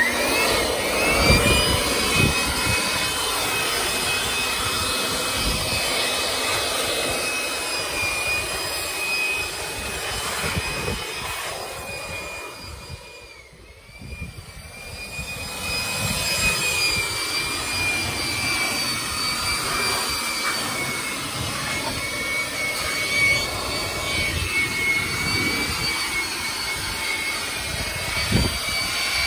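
Handheld electric air blower running with a steady high-pitched motor whine and rush of air as it blows out a car's interior. About halfway through, the whine drops in pitch and loudness for a second or two, then comes back up to speed.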